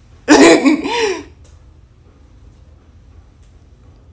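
A woman's loud, wordless yell lasting about a second, the pitch bending, given as a mock greeting; then only faint room tone.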